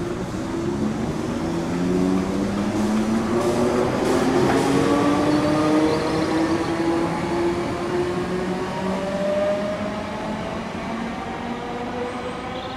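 Electric multiple-unit train pulling away from the station, its traction motors whining in a stack of tones that rise steadily in pitch as it gathers speed, over the rumble of wheels on rail.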